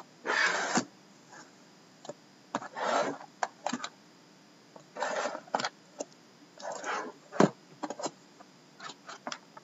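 Cellophane shrink-wrap on two sealed trading-card boxes crinkling in short bursts as the boxes are handled and turned over, with a sharp tap of a box about seven seconds in.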